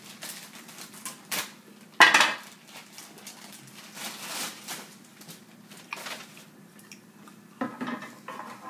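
Scattered clinks and knocks of glassware and a drinks bottle being handled, with one sharp, loud knock about two seconds in.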